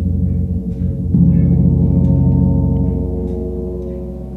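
Large hanging gong struck with a soft felt mallet, a fresh stroke about a second in, ringing low with many overtones and slowly fading.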